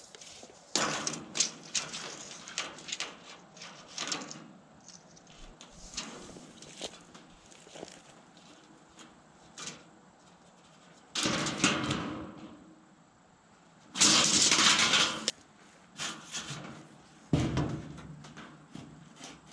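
Handling noise from measuring and marking a corrugated metal roofing panel with a tape measure and a long level: a run of light clicks and rattles, then two louder scraping rushes past the middle and a knock near the end.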